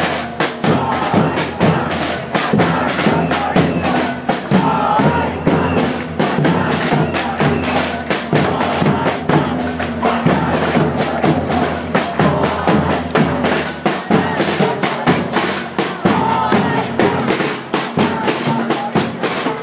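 Street percussion band drumming a fast, steady rhythm on bass drums and snare drums.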